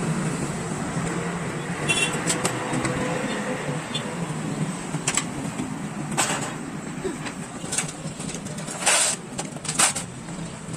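Loose metal motorcycle parts clinking and clattering as they are handled and set down in a metal parts tray: several sharp clinks a second or more apart, the loudest two near the end, over a steady low background hum.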